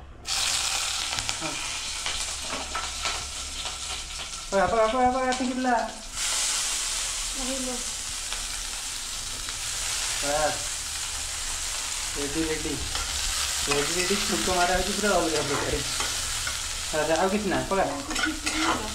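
Tempering spices (phutana) dropped into hot oil in a pan set off a loud sizzle that starts suddenly and keeps going. It dips for a moment about six seconds in, then picks up again. Voices can be heard now and then over the frying.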